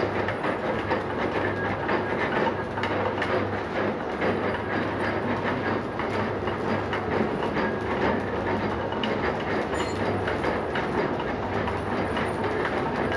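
Metal lathe running under load: a steady mechanical din with a low hum and a continuous irregular rattle of small clicks.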